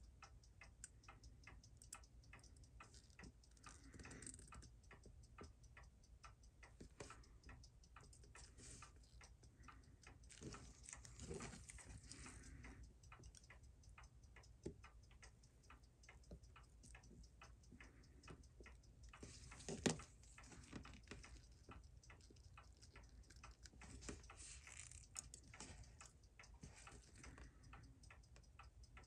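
Faint, fast, even ticking of a Seiko 6139 chronograph movement running in its holder. A few louder clicks of tweezers on the movement's parts stand out, the loudest about 20 seconds in.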